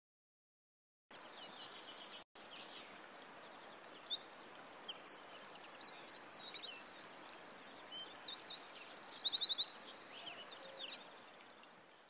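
Small songbirds singing: many quick, high, repeated trills and chirps overlapping over a faint steady hiss. It starts abruptly about a second in, drops out for an instant soon after, and fades near the end.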